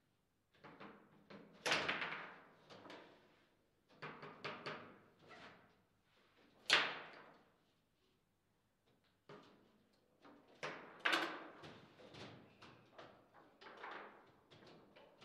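Table football in play: the hard ball struck by the plastic player figures and knocking against the table walls, among the clack of the rods, in irregular runs of sharp knocks. The loudest single hits come about two, seven and eleven seconds in.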